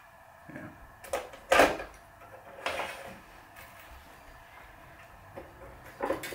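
Hands working a racquet-stringing machine: string being drawn and clamps moved and set, heard as a few short clicks and scrapes, the loudest about a second and a half in.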